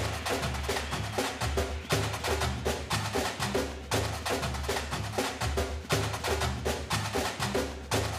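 Background music driven by fast, busy percussion over a steady bass line, with a stronger accent about every two seconds.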